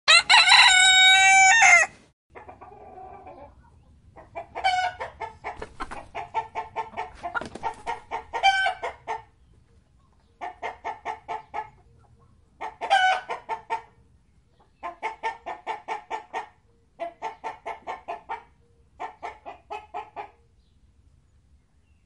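A rooster crows once, loud and about two seconds long, then chickens cluck in repeated runs of short, rapid notes, several bursts in a row, stopping shortly before the end.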